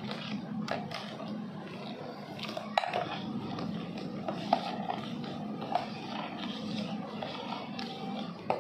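Steel ladle stirring foamy milk and soda in a stainless steel pot: continuous scraping and sloshing, with a few sharp clinks of the ladle against the pot.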